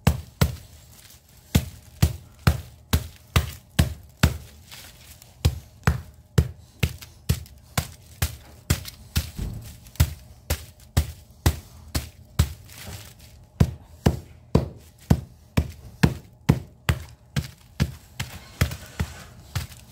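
Repeated hammer blows chopping into the crushed aluminium fins of a scrap radiator to free the last copper tubes. The blows come in steady runs of about two to three a second, with a couple of short pauses.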